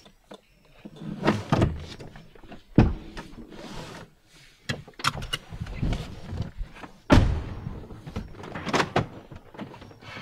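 Car doors shutting with two heavy thuds, about three and seven seconds in, with shorter knocks and rustling of people settling into the seats between them.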